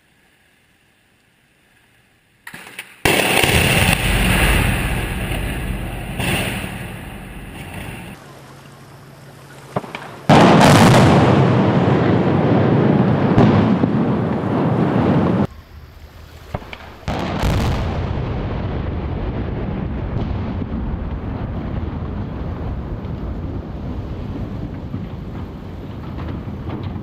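Explosive demolition charges cutting a steel truss bridge span: a sudden loud blast about three seconds in, a second loud blast about ten seconds in, then a long low rumble that slowly fades as the span comes down.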